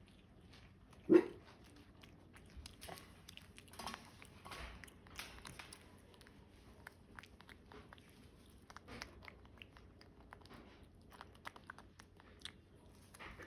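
Pet monkey eating, with scattered small crunches and clicks of chewing and handling food. There is one short, loud sound about a second in.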